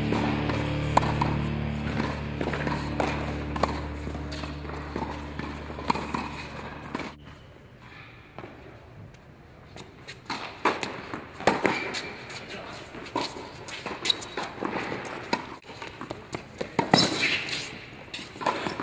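Background music fading out over the first several seconds, then live tennis play: sharp hits of rackets on the ball and players' footsteps on the court.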